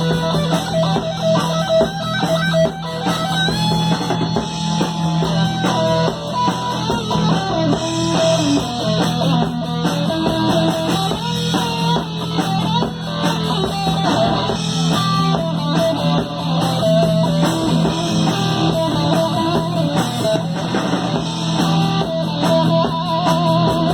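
Live rock band playing an instrumental passage: electric guitar lines over bass and a drum kit.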